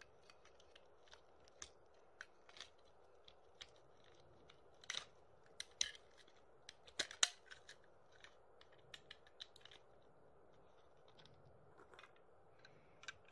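Light, scattered clicks and taps of hard plastic toy train cars and plastic rail pieces being handled, with a few sharper clacks about five to seven seconds in.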